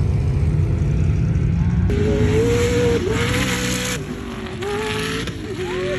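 Deep, low engine rumble of off-road vehicles for the first two seconds, then, after an abrupt change, a sand-rail buggy's engine held at high revs at full throttle, one steady high note that dips briefly a couple of times, over a hiss of spraying sand.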